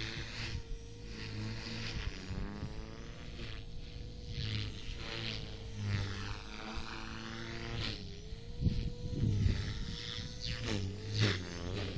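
MSH Mini Protos electric RC helicopter in flight: a steady motor and rotor whine that sags briefly in pitch a few times as the helicopter manoeuvres and then recovers. A shifting swish comes from the rotors as it moves about overhead, with wind buffeting the microphone.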